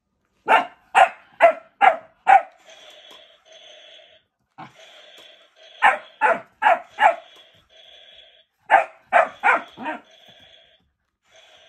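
A small canine barks sharply at a walking toy robot dinosaur, in three quick runs of four or five barks about half a second apart. Between the runs a fainter steady buzz comes and goes, likely the toy dinosaur's motor.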